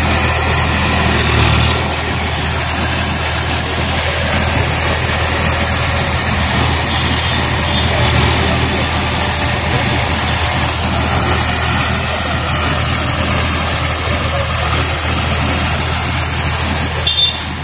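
Eicher 551 tractor's three-cylinder diesel engine running steadily under load while pulling a tillage implement through dry, dusty soil.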